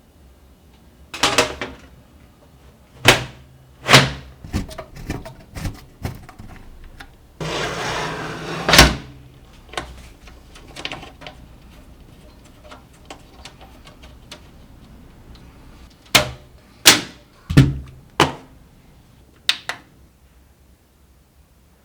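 Irregular sharp clicks and knocks of hard parts being handled and fitted, with a scraping noise lasting about a second and a half about seven seconds in.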